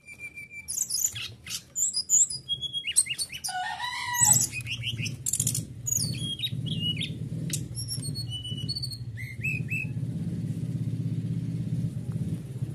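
Brown-chested jungle flycatcher (SRDC) singing a fast, varied run of high whistles, chirps and trills, the song of a male in strong breeding condition, stopping about ten seconds in. A low steady motor rumble joins about four seconds in and keeps going after the song.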